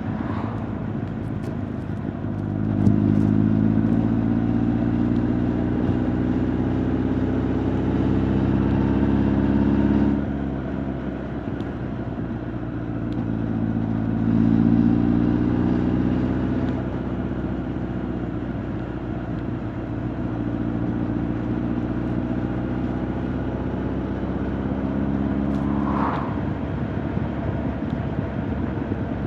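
Honda CB1300 Super Bol d'Or's inline-four engine and exhaust under way, heard from the rider's back. It pulls harder and louder about three seconds in, eases off at about ten seconds, pulls again for a few seconds, then cruises steadily.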